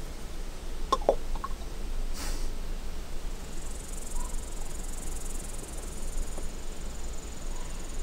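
Outdoor ambience with insects trilling in a high, steady buzz that sets in about three and a half seconds in, over a low steady rumble. A few sharp clicks come about a second in, and a brief rustle follows around two seconds in.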